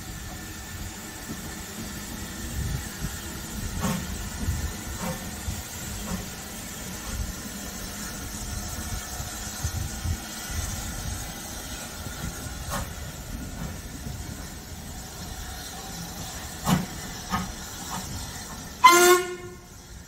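Ivatt Class 2MT 2-6-2 tank steam locomotive pulling away, its exhaust beating and steam hissing over a low rumble, with a few short knocks. Near the end there is a short, loud steam whistle blast.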